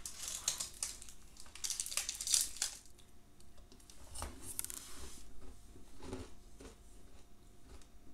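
Paper cup and wrapper of a coconut-coated sweet crinkling as it is unwrapped, loudest just over two seconds in. Then chewing close to the microphone.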